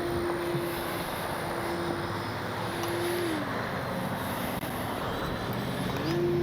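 Small RC plane's electric motor and propeller running, a steady whine that throttles down about three seconds in and comes back up near the end, over a steady rush of wind on the microphone.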